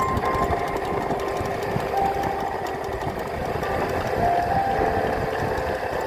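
Rumbling wind and ride noise on the microphone of a moving electric scooter, with music from the scooter's Bluetooth speaker heard as short melody notes over it.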